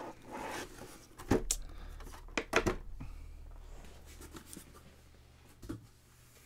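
Cardboard packaging being opened and handled: rustling with a cluster of sharp taps and knocks in the first three seconds, one more knock later, then quieter handling.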